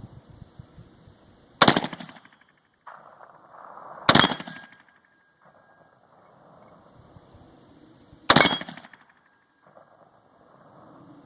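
AR-15 rifle fired three times in slow single shots, a few seconds apart, each sharp report followed by a brief ringing tail.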